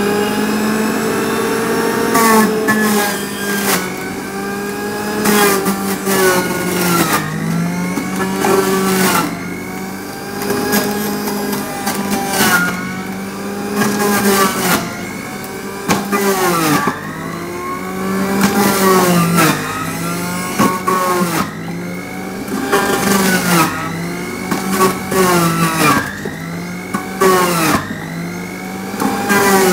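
Sujata electric juicer running, its motor hum sagging in pitch and climbing back every second or two as carrots are pushed down the chute and shredded, with bursts of grinding.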